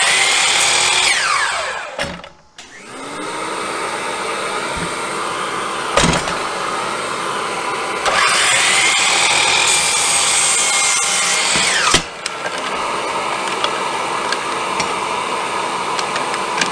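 Hercules compound miter saw's motor whining at full speed through two cuts: one in the first two seconds, a second from about eight seconds in that rises to speed, holds and cuts off sharply near twelve seconds. A steadier machine whir carries on between and after the cuts.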